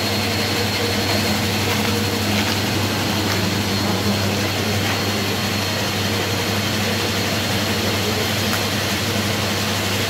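ABS washing machine running: its electric motor and drum give a steady low hum over an even rushing noise.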